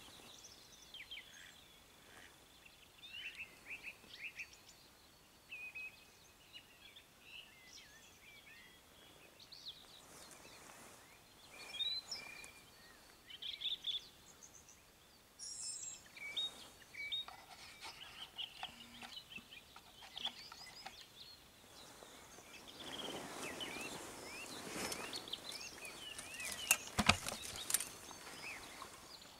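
Small songbirds chirping and singing in a faint dusk chorus over the marsh, with short whistled calls scattered throughout. Near the end comes a stretch of rustling and one sharp knock.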